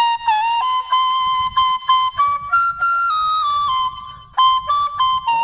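Background music: a flute playing a simple melody of short repeated notes that step up and down, with a brief drop-off about four seconds in.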